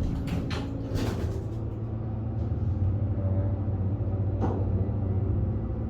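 Hydraulic elevator running, a steady low hum with a few brief knocks in the first second.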